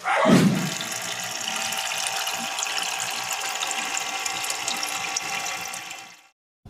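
Water running and splashing into a plastic tub of scallop shells used as aquarium filter media. It begins with a loud gush, runs steadily, then fades out about six seconds in.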